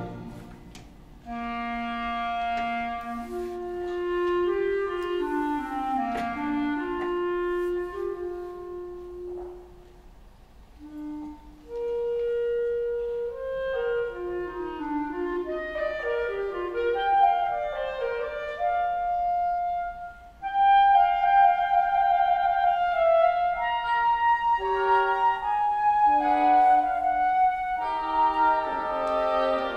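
Solo clarinet playing a melodic passage mostly on its own, with the full band silent. It goes in phrases, with brief pauses about 10 and 20 seconds in.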